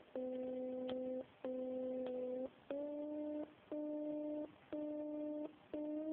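FrSky Taranis radio transmitter's variometer tone: a low, buzzy beep repeating about once a second with short gaps. From about halfway the beeps grow a little shorter and each one is higher in pitch than the last.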